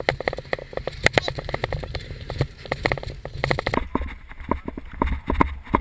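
Mountain bike rolling over rough trail: a low rumble with rapid, irregular rattling and clicking from the bike. The sound changes abruptly nearly four seconds in.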